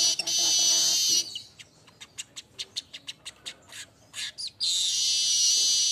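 Manyar weaver birds singing: a loud, high, dense buzzing trill, breaking off about a second in into a run of short sharp chirps at about four a second, then the long high trill starts again near the end.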